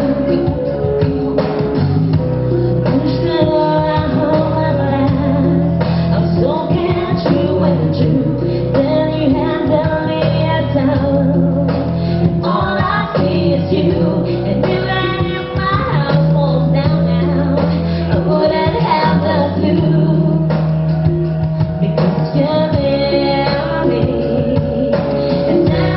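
Live pop band playing, a woman singing the lead melody over bass, drums and keyboard.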